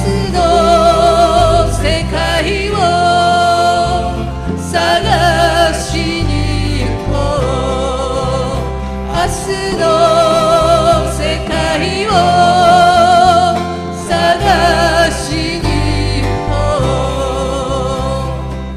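Live folk band performing a Japanese folk song: a woman sings the melody with vibrato in long phrases, with others in the band joining in, over strummed acoustic guitars, electric bass and bongos.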